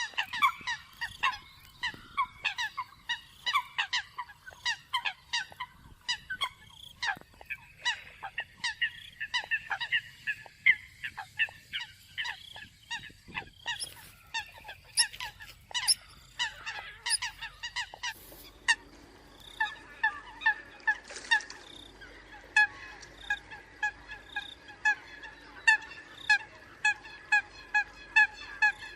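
Eurasian coots calling: a fast series of short, sharp calls, several birds overlapping at first, then a more even run of calls at about two a second from about 18 seconds in.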